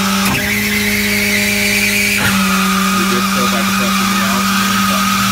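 Service truck's PTO-driven hydraulic system working the outriggers out: a steady low hum with a high whine that steps up in pitch about a third of a second in and drops back about two seconds in.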